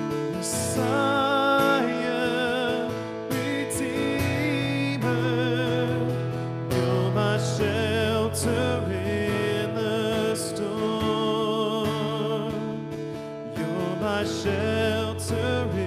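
A man singing a slow worship song with vibrato, accompanying himself on an acoustic guitar.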